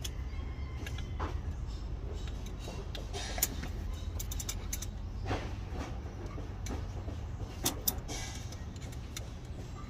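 Pliers clicking and scraping on metal among the valve springs of an open diesel cylinder head, with a few sharp ticks about three and a half and nearly eight seconds in. A steady low hum runs underneath.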